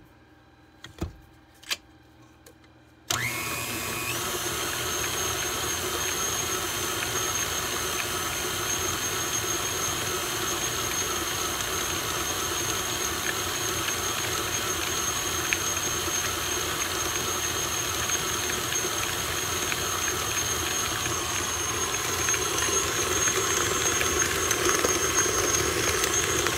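A couple of light clicks, then about three seconds in an electric stand mixer switches on and runs steadily, its motor giving a constant high tone, as the flat beater mixes an egg yolk into creamed shortening and sugar for cake batter. It gets a little louder near the end.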